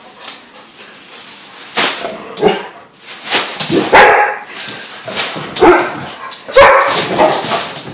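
Dog barking repeatedly, about half a dozen barks spread over several seconds, agitated by another dog's play.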